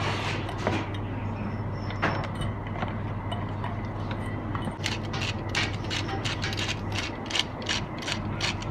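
Metal spoon scraping and clinking against a stainless steel bowl as a paprika-and-oil marinade is stirred, the strokes coming regularly at about three a second in the second half, with a pepper mill grinding near the end. A steady low hum runs underneath.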